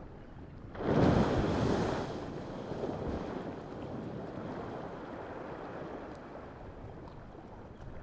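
Strokkur geyser erupting: a sudden rush of water and steam bursts out about a second in, loudest for about a second, then dies away slowly over the following seconds.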